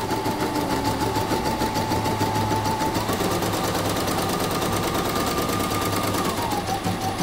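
YOKO computerized embroidery machine stitching a design: a fast, even run of needle strokes over a steady motor whine that steps up in pitch about three seconds in and drops back near the end. It is a test run after the hook and bobbin case were repaired, and it runs smoothly.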